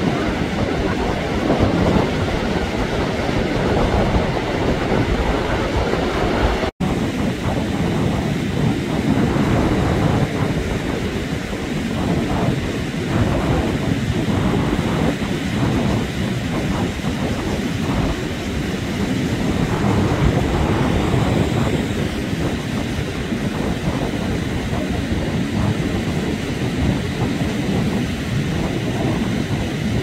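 Rough surf breaking on a sandy shore: a steady rush of noise, heaviest in the low end. It drops out for an instant about seven seconds in.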